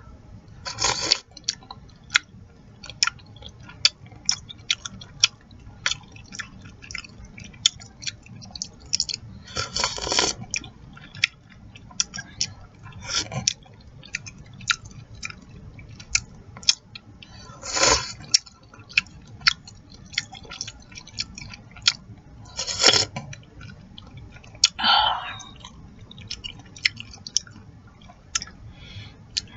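Chicken noodle soup being eaten with wet chewing and lip smacking, a quick run of small clicks throughout. About five louder slurps of noodles and broth break in.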